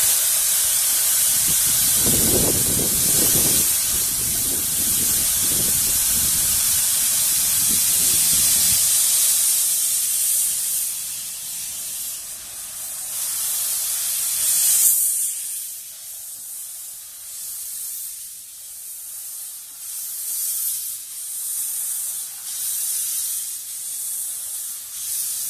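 Narrow-gauge steam locomotive hissing loudly with escaping steam. About halfway through, the steady hiss turns into a pulsing beat of roughly one puff a second as the engine moves off, and a low rumble comes and goes in the first half.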